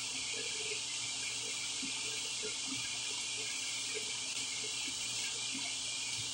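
A steady hiss, with faint soft sounds of a cheesy pizza slice being pulled apart by hand.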